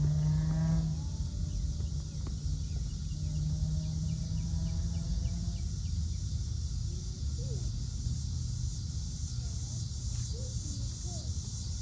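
Crickets and other insects chirping in a steady high trill over a low steady rumble. A low hum runs under them and fades out a little after halfway.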